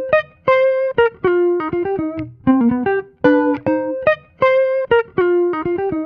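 Background music: a melody of short plucked guitar-like notes, some in quick pairs, with brief pauses between phrases.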